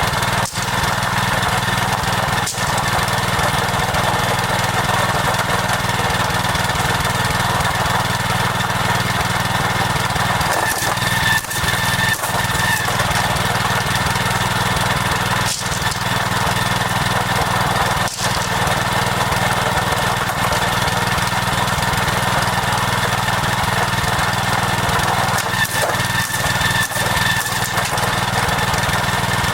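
Small engine running steadily at a constant speed, with a few brief knocks and dips along the way.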